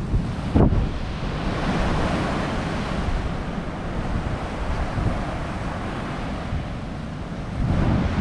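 Strong gusty wind buffeting the microphone with a low rumble, over surf breaking on the beach. A hard gust hits the microphone about half a second in, and the wind picks up again near the end.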